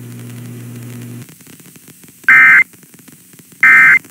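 Emergency Alert System end-of-message signal on a weather alert broadcast: two short, very loud bursts of the screeching SAME digital data tone, about a second and a half apart, over faint radio static. A low steady hum runs under the first second and then cuts off. The bursts mark the end of a severe thunderstorm warning.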